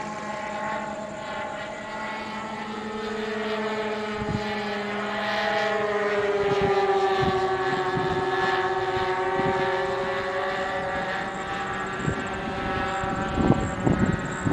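Radio-controlled P-38 Lightning model aircraft in flight, the steady drone of its motors and propellers slowly rising and falling in pitch as it flies past. A few thumps and rustles near the end.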